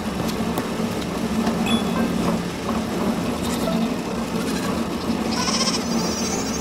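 Sheep bleating over a steady hum of conveyor machinery.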